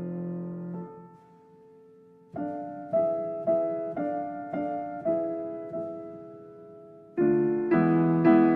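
Soft piano music: a held chord fades away, a short pause, then a slow run of single notes, and a fuller, louder chord comes in near the end.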